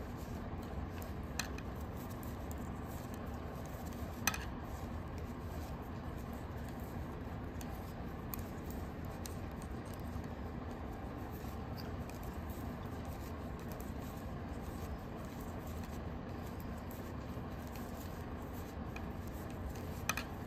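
Knitting needles clicking and scraping faintly as stitches are worked, over a steady low background hum; the sharpest click comes about four seconds in and another near the end.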